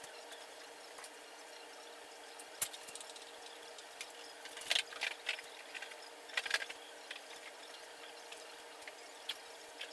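Soft rustling and scattered light taps of damp cotton dish towels being folded and pressed down on a granite countertop, over a steady low hiss and faint hum.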